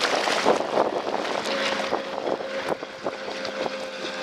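Wind gusting on the microphone over choppy lake water, with a motorboat engine running steadily from about a second and a half in.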